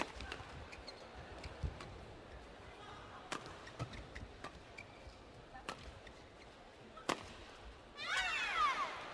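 Badminton rackets striking the shuttlecock in a doubles rally: four sharp cracks a couple of seconds apart, with lighter ticks of footwork between them. Near the end comes a burst of high, falling squeaks of shoes on the court surface.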